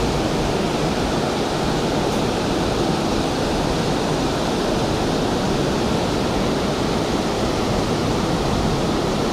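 Steady rush of water spilling over a low dam's spillway, even and unbroken.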